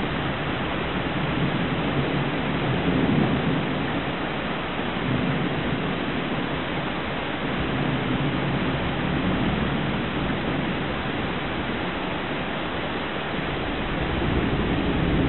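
Thunderstorm: rain pouring steadily, with thunder rolling and rumbling underneath and swelling a few times, loudest about three seconds in and again near the end.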